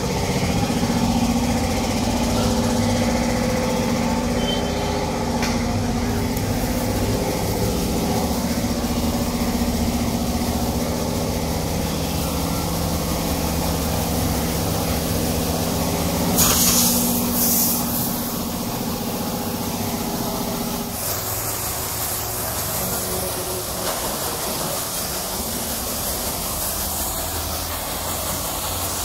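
Pressure washer running: its motor-driven pump hums steadily, with a short, loud burst of spray hiss a little past halfway. The hum stops about two-thirds of the way through, leaving the even hiss of the water jet spraying the bodywork.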